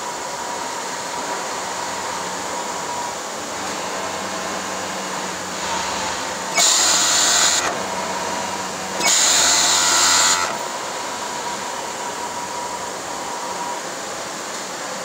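Industrial sewing machine running in two short bursts, about a second and then a second and a half, as a seam is stitched, over a steady hum of workshop machinery.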